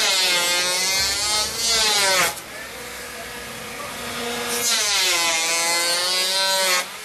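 Electric hand planer cutting into a fibre-reinforced foamed-urethane (FFU) synthetic sleeper in two loud passes of about two seconds each. Between the passes the motor runs on more quietly, and the sound falls off near the end.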